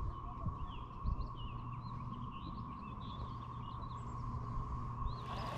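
Small birds chirping and twittering in quick, short calls over a steady high whine, typical of a boat's electric trolling motor running.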